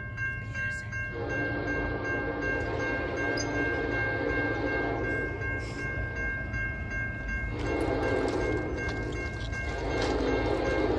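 An approaching locomotive's horn sounding for a grade crossing: a long blast starting about a second in and lasting about four seconds, a shorter one about 7.5 s in, and another starting just before the end. Under it, the crossing signal's bell rings steadily as the gates come down.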